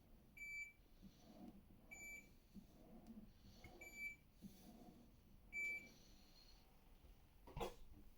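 BlitzHome BH-4-CDW dishwasher's electronic beeper sounding four short high beeps, unevenly spaced about one and a half to two seconds apart, followed by a sharp click near the end.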